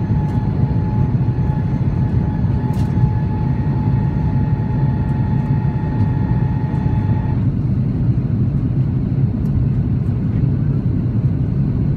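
Cabin noise of an Airbus A330-200 in its climb after takeoff: a steady low rumble of the jet engines and airflow. Over it, a steady whine cuts off abruptly about seven seconds in.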